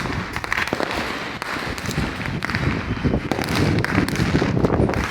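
Fireworks and firecrackers going off in a dense, unbroken run of bangs and crackling pops, many overlapping at once.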